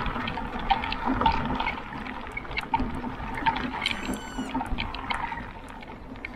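Footsteps on a path in a regular walking rhythm, with wind rumbling on the microphone and a short, high bird call about four seconds in.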